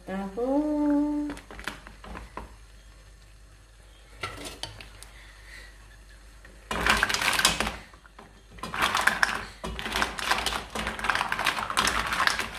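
Mussel shells clattering in a cooking pot, in two dense spells of rapid clicks and rattles in the second half.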